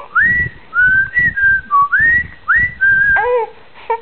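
A person whistling a string of about eight short notes, most sliding up to a held high pitch, whistled to a baby. Near the end comes a baby's brief squealing vocalization.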